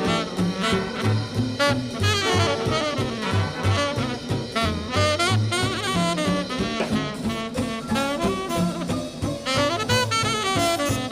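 Swing big-band instrumental break, a tenor saxophone playing the lead line over brass and a steady bass beat.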